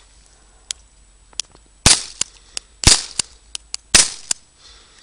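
Three sharp reports about a second apart from a single-action revolver firing primer-powered wax bullets, which sound light like a cap gun. Fainter clicks fall between the shots.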